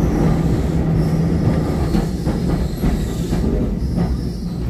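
Heritage Brisbane electric tram running, heard from inside the passenger saloon: a steady rumble of motors and steel wheels on the rails, with a few clicks over rail joints midway and a faint high wheel squeal at times.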